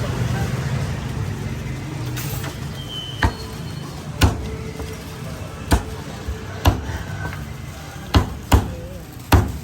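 Cleaver chopping roast pork: about eight sharp, irregularly spaced chops starting about three seconds in, over a steady low hum of street traffic.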